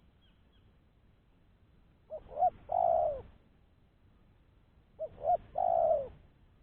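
Spotted dove (tekukur) cooing: two calls about three seconds apart, each two short notes followed by a longer coo that falls in pitch.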